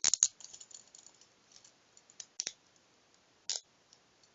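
Hinged handcuffs clicking and rattling as a cuff's ratchet is closed around an ankle. A quick cluster of sharp clicks comes at the start, then two single clicks about two seconds in and a short rattle near the end.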